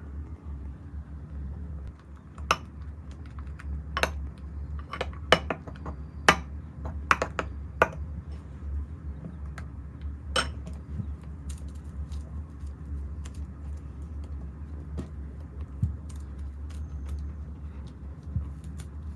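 Sharp clicks and taps of containers and tools being handled while making slime, thickest in the first half and then lighter and sparser, over a steady low hum.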